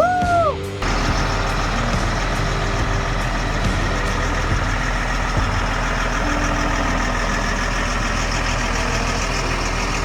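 Heavy diesel truck engine running steadily, a constant low drone under an even noise. It starts abruptly about a second in, after a short falling tone at the very start.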